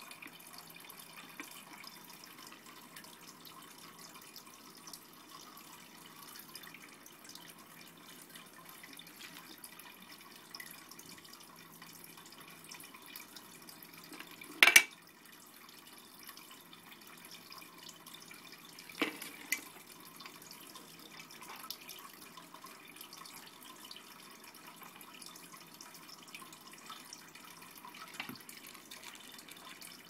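Cat lapping water from the bowl of a jar-type water dispenser: faint wet laps and drips. There is one sharp knock about halfway through and two more a few seconds later.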